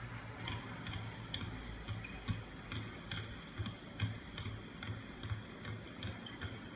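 Two basketballs dribbled on a hardwood court: a steady run of bounces, about three a second, each a dull thud with a short ping from the ball.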